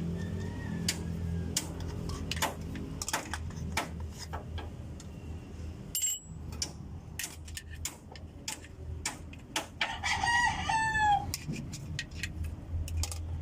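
A rooster crowing once, about ten seconds in, loud and clear over scattered clicks and taps of hand-tool work and a steady low hum.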